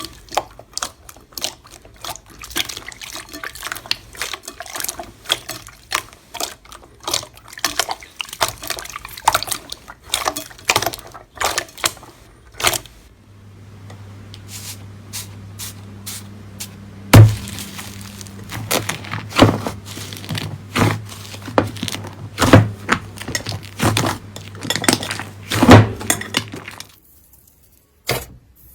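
Slime being squeezed and pressed, giving rapid crackling clicks and pops. In the second half a steady low hum runs under louder, more spaced pops. The sound stops about a second and a half before the end.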